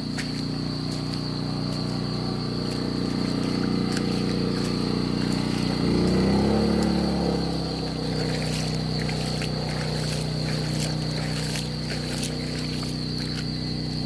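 A motor runs steadily with a low hum, and its pitch shifts and swells briefly about six seconds in. Insects trill at a steady high pitch throughout.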